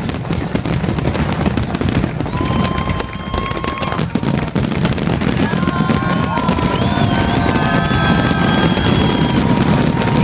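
Large fireworks display in its final stretch: dense, rapid crackling and popping over a continuous low rumble of shell bursts, growing a little louder partway through. Several long whistle-like tones sound over it from about two seconds in.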